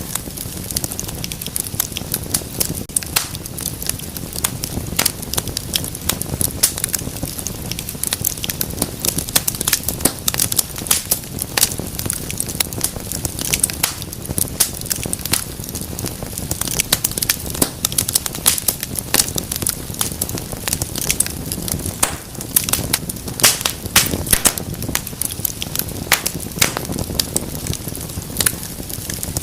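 Wood fire crackling in a fireplace: constant irregular sharp pops and snaps over a low steady rumble of burning.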